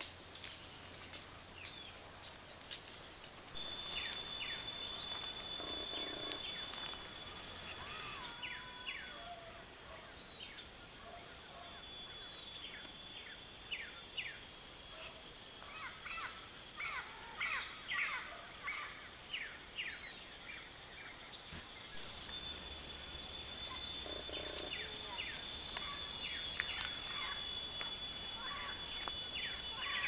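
Small songbirds chirping with many short calls that slide down in pitch, over a steady high-pitched insect trill that starts a few seconds in. A few sharp clicks stand out, the loudest about 9, 14 and 21 seconds in.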